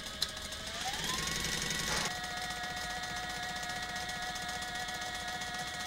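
Sailrite Fabricator industrial walking-foot sewing machine running on its Workhorse servo motor, with a steady motor whine and rapid stitching. About a second in the whine rises in pitch as the machine speeds up, and after a brief break near two seconds it holds steady.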